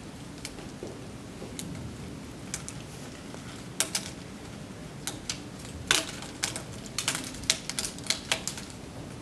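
Small wads of crumpled paper dropping onto a wooden school desk, landing as sharp, irregular light taps: a few faint ones, then a dozen or so louder ones close together from about four seconds in.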